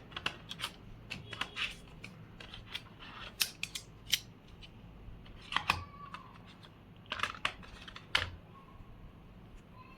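Irregular sharp clicks and taps with some light rustling, from handling a new smartphone and its box and packaging during unboxing.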